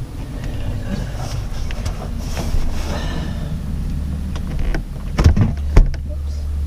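A van refrigerator being worked loose and slid out of its cabinet: scattered scraping, rattling and knocks, then two loud bumps, just after five seconds in and near six seconds, over a low steady rumble that sets in about two-thirds of the way through.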